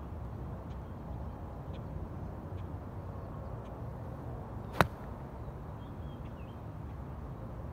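A single sharp click of a golf club striking the ball on a full swing, a little under five seconds in, over a steady low outdoor background.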